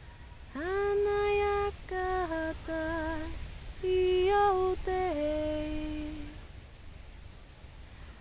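A woman singing wordless, unaccompanied 'light language' phrases: she slides up into a long held note, sings a few shorter notes with a slight waver, and ends on a lower held note about six seconds in, then pauses.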